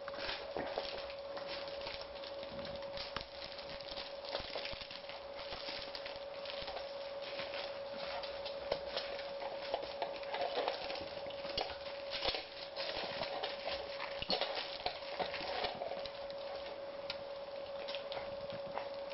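Cocker spaniel puppies scuffling, nuzzling and chewing together on a fabric play mat over a tile floor: scattered small clicks, scrapes and rustles, over a steady background hum.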